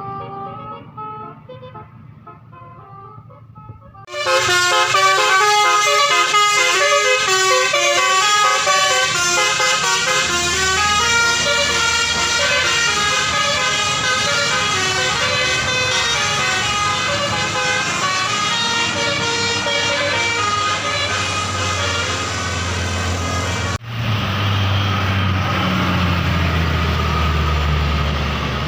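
A basuri-type telolet horn, a set of electric trumpet horns on a car, plays a fast, stepping multi-note tune. It comes in loud about four seconds in and runs for some twenty seconds over the hum of the engine. After an abrupt break near the end, the engine is heard rising in pitch as the vehicle speeds up.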